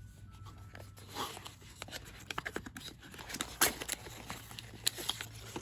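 Product packaging being opened and handled by hand: rustling, crinkling and a run of sharp clicks, the loudest snap about three and a half seconds in.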